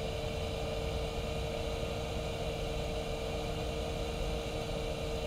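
A steady machine hum with one held mid-pitched tone, unchanging throughout.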